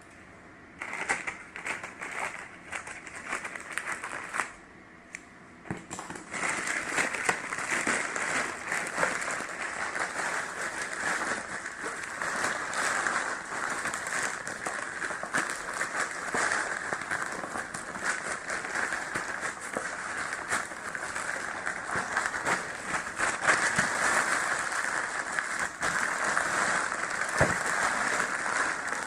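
Plastic packaging crinkling and crackling as it is handled, a dense run of small crackles. It is patchy at first and turns continuous about six seconds in.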